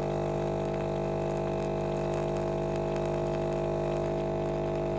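Nespresso capsule machine's pump running steadily as it brews a single espresso, a constant buzzing hum with liquid flowing.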